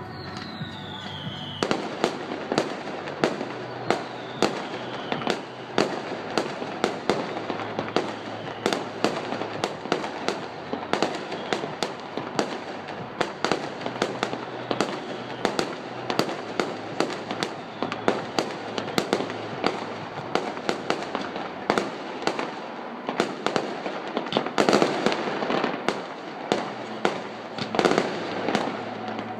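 Fireworks going off in quick succession: a dense run of sharp bangs and crackles, several a second, heaviest near the end. It opens with a short falling whistle.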